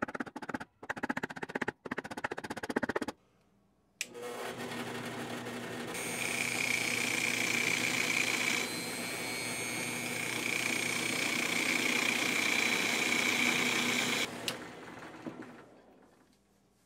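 A drill press switches on with a click about four seconds in and spins an oak blank in its chuck as a makeshift lathe. A hand tool scrapes and cuts into the turning wood, adding a steady high whine to the motor noise. Near the end the press winds down. Before it starts there are a few seconds of rapid clattering handling noise.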